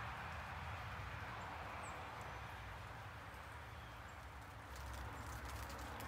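Footsteps crunching through leaf litter over a steady outdoor hiss; the crackle of the steps becomes plainer near the end.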